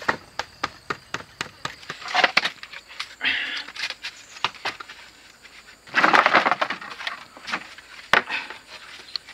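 Bamboo poles knocking and clattering as they are handled and laid on a hut frame: a run of sharp clicks and knocks with bursts of scraping and rustling, the loudest about six seconds in, and a sharp crack near the end.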